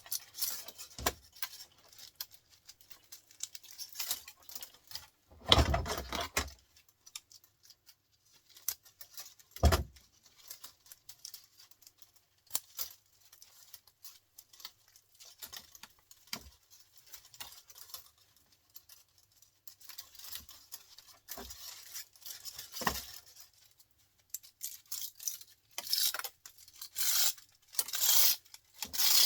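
Scrap electric motors being stripped by hand: metal parts clinking and knocking, with a heavy thump about six seconds in and another near ten seconds. Near the end comes a run of loud rasping, tearing noises.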